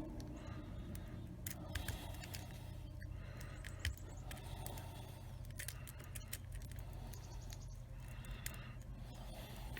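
Lock pick and tension wrench working inside a small 40 mm padlock: faint, scattered metallic clicks and scrapes as the pins are probed.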